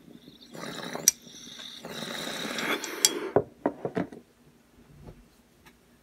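Rustling and handling noise with two sharp clicks, one about a second in and one about three seconds in, followed by a few softer knocks.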